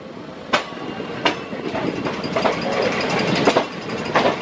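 Passenger train running on the track, its wheels clicking over rail joints in sharp knocks with a rumble that grows louder.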